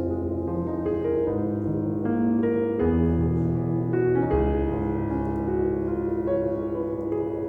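Background music: a soft piano melody over sustained bass notes.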